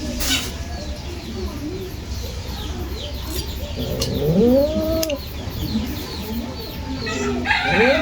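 A cat meowing: one rising-and-falling meow about four seconds in, and a longer one that starts near the end. Behind it runs a steady series of short, high chirps.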